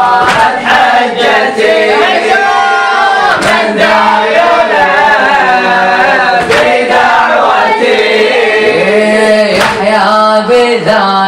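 A group of boys chanting a Shia latmiyya refrain in unison with a lead reciter. Sharp slaps of hands striking chests (latm) cut through the singing now and then.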